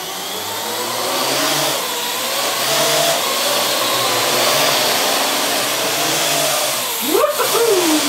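Parrot AR.Drone quadcopter's four motors and propellers whirring, building up over the first second or so as it lifts off, then a steady whirring hiss with slight wavering in pitch as it flies and hovers.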